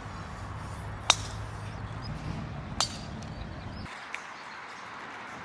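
Two sharp clicks of golf clubs striking balls, about a second and a half apart, over an outdoor hum that stops a little before the end, with faint bird chirps.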